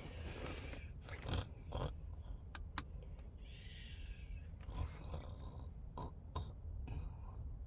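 A person snoring, with a few sharp clicks in between.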